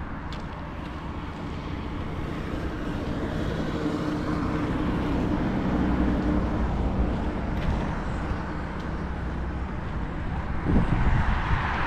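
A motor vehicle's engine passing outdoors: a low hum that swells towards the middle and then eases. There are a few knocks near the end.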